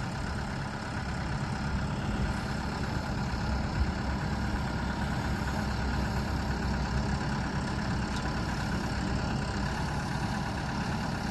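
2004 JCB 215E backhoe loader's diesel engine idling steadily.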